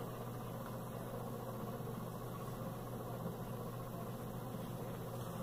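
A steady low hum of background noise that does not change.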